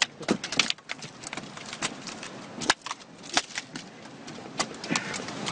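A run of sharp, irregular knocks and clicks, about two to four a second, over a low hiss.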